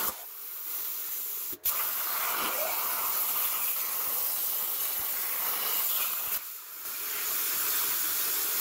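Homebuilt CNC plasma cutter's torch cutting steel plate: a steady harsh hiss of the arc and compressed air. It cuts out for an instant about one and a half seconds in, then dips briefly again about six and a half seconds in.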